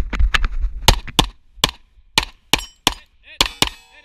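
Footsteps on dirt slow to a stop, then a handgun fires a quick string of about eight shots at steel targets. Steel plates ring after the last hits.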